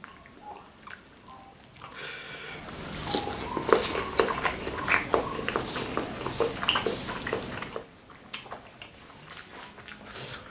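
Close-up eating sounds of spicy instant noodles and egg martabak: dense wet chewing, smacking and slurping for several seconds in the middle, quieter scattered mouth clicks before and after.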